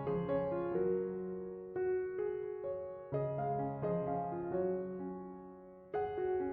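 Soft background piano music, notes struck one after another and fading away.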